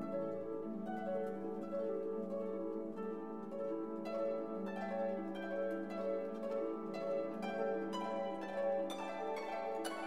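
Instrumental background music: a run of plucked notes over a held low note.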